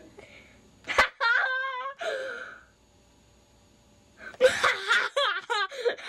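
A boy's high-pitched squealing laughter and gasps, in two bouts with a short quiet gap between them. There is a sharp click about a second in.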